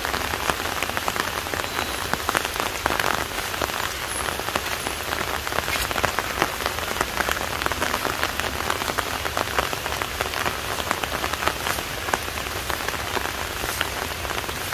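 Rain pattering steadily on a surface: an even hiss dotted with many small ticks.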